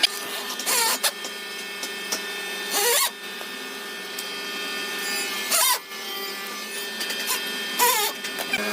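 Handheld rotary carving tool running with a steady high whine, cutting into wood in four short, harsher bursts where the pitch dips and recovers.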